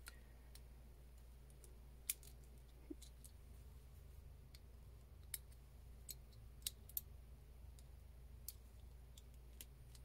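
Faint, scattered sharp clicks of small metal parts of a Nissan 300ZX (Z31) ignition lock cylinder being fitted together by hand, about nine in all, over a low steady hum.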